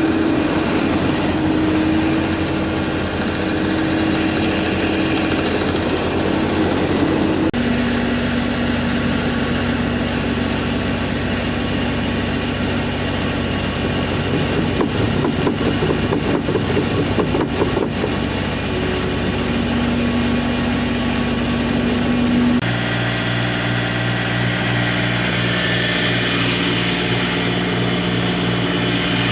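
Tractor engine running steadily. Its pitch and tone change abruptly twice, about a third of the way in and near the end.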